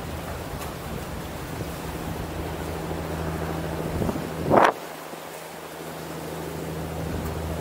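Wind buffeting the microphone over a steady low engine hum. About four and a half seconds in comes a short rising whoosh, the loudest moment, after which the low rumble briefly drops away.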